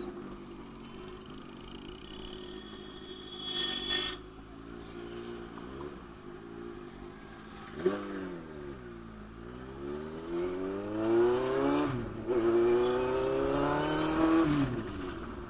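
Motorcycle engine idling at a standstill, then revved and pulled away hard: the revs climb, drop sharply at an upshift, climb again, then fall away as the throttle is closed near the end.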